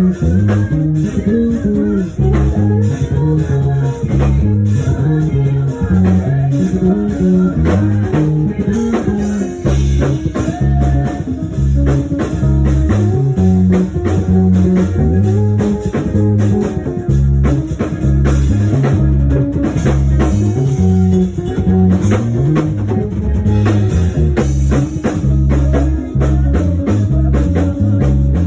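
Live band music with bass guitar, guitar and drum kit playing a steady groove.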